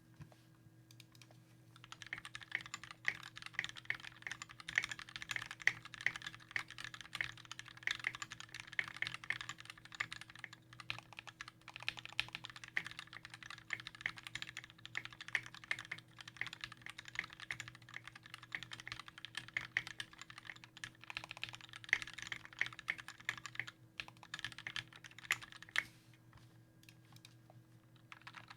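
Typing on a custom 60% mechanical keyboard with lubed and filmed Gateron Black linear switches, Tai-Hao ABS keycaps and an aluminium Tofu case: a dense, fast stream of keystrokes. It starts about two seconds in and thins out near the end, over a faint steady hum.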